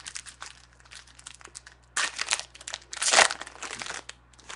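Plastic wrapper of a trading-card pack crinkling and tearing as it is opened, in quick crackly bursts; the loudest come about two seconds in and again about a second later.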